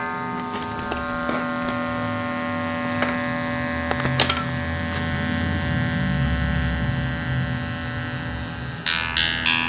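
Homemade electronic tone generator sounding a steady, buzzy drone of several sustained square-wave tones through its small speakers, with a few faint clicks. Near the end it changes to a quick run of short, plucked-sounding notes, about three or four a second.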